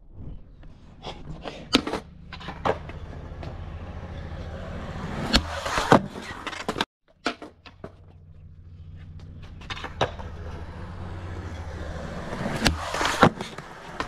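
Skateboard wheels rolling on smooth concrete with a steady low rumble, broken by sharp clacks of the board popping and landing, the loudest about six seconds in. The rolling breaks off briefly about seven seconds in and picks up again, with more clacks near the end.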